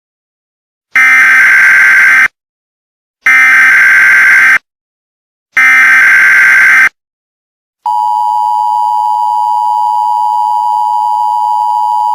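Emergency Alert System SAME header: three loud bursts of buzzing data tones, each a little over a second long and about a second apart. About eight seconds in, the steady two-tone EAS attention signal starts and holds.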